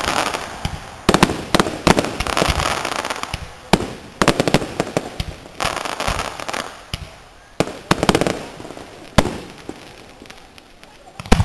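Aerial fireworks shells bursting: a rapid run of sharp bangs with crackling in between, thinning out to scattered bangs later on, and one loud bang near the end.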